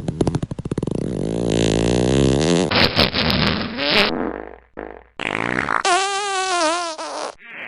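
Several fart sounds played back to back. First comes a rapid flapping one, then longer pitched ones whose tone wavers up and down, with a short burst after a brief gap in the middle. Each cuts off abruptly into the next.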